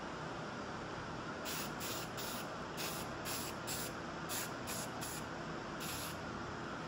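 Aerosol spray paint can spraying in about ten short, quick hisses, starting a second and a half in and ending near the end. The bursts are irregularly spaced, with brief gaps between them.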